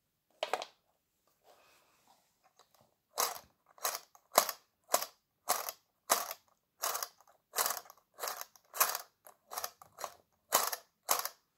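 A train of sharp clicks, about one every 0.6 s, from a small plastic classroom generator model whose rotor is being turned by hand. A single click comes first, then the clicks settle into a steady rhythm about three seconds in.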